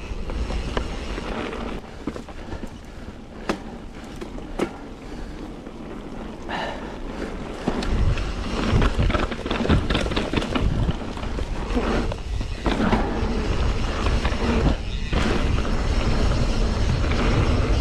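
Mountain bike being ridden on a dirt trail: tyres rolling over the ground and the bike rattling and clicking over bumps, with wind buffeting the microphone. It gets louder from about eight seconds in.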